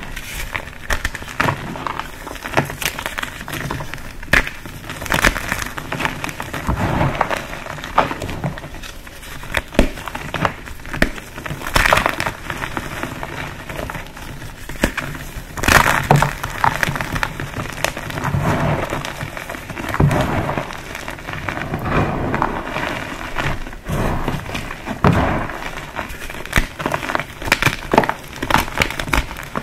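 Green dyed, pasted gym chalk blocks being crushed: a continuous dry crunching and crumbling, dotted with sharper snaps as pieces break, a few of them louder.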